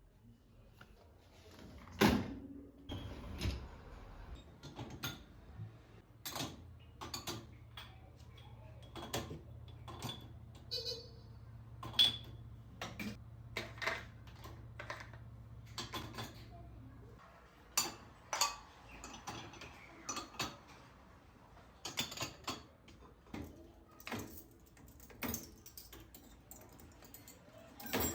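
Dishes and cutlery being handled and set down: irregular clinks and knocks throughout. A low hum runs through the middle and stops suddenly a little over halfway through.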